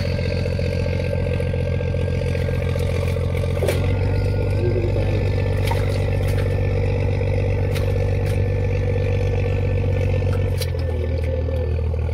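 Boat engine running steadily with a low drone, its note shifting about four seconds in and again near the end, with scattered clatter on deck.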